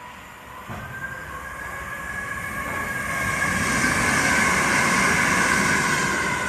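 A c2c Class 357 electric train running through the station while a London Underground District line S7 Stock train pulls in at the platform. The rumble builds from about a second in and peaks in the second half, with a high steady whine over it.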